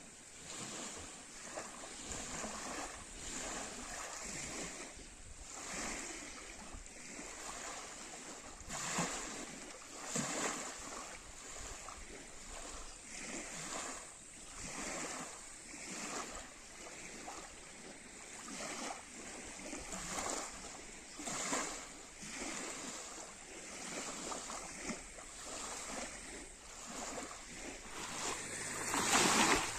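Small lake waves lapping and splashing against the shore, a soft splash every second or so, with a louder splash near the end.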